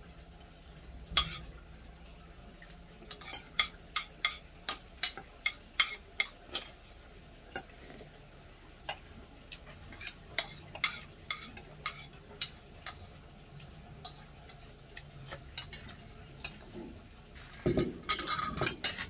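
Metal spoon and chopsticks clinking and scraping against stainless steel bowls while eating, with a quick run of about two clinks a second a few seconds in, then scattered clinks and a brief busier clatter near the end.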